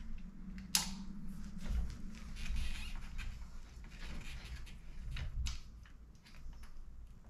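Hand tool and fingers working at a bicycle's bolt-on rear axle bolts, giving light scattered clicks and scrapes, with a sharper click about a second in and another about five and a half seconds in. A low steady hum runs underneath.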